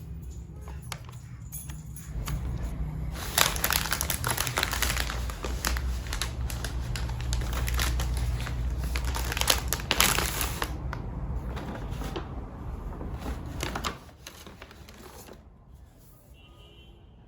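Wrapping crinkling and rustling as it is handled, a dense run of crackles starting about two seconds in and stopping near fourteen seconds, over a low steady hum.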